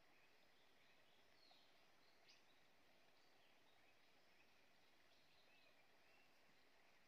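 Near silence: faint forest ambience with scattered short, high bird chirps, and one faint tick a little over two seconds in.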